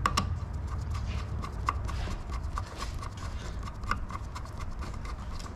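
Screwdriver turning a screw into a Chrysler 727 transmission valve body, with a run of light metallic clicks about three to four a second over a steady low hum.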